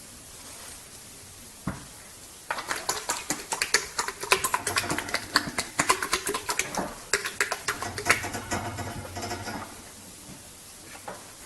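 A horse flapping its lips together in a rapid run of loose, clattering smacks, a trick mouth noise, starting about two and a half seconds in and lasting about seven seconds.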